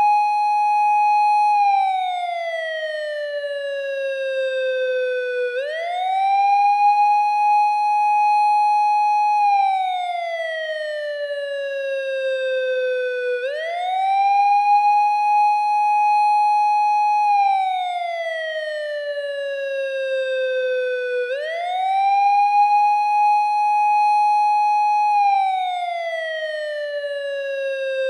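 Japanese police car siren sounding its slow wail on an eight-second cycle. Each cycle rises quickly, holds high for about four seconds, then falls slowly before rising again. Three full cycles are heard.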